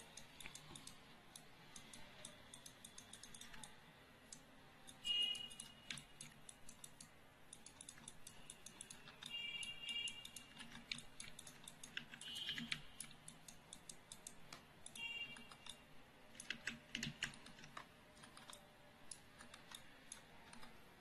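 Faint, quick clicking of a computer mouse and keyboard, scattered throughout, with a few short high-pitched tones.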